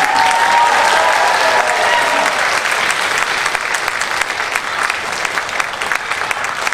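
Audience applauding, with a long cheer held over the clapping for the first two seconds; the applause slowly fades.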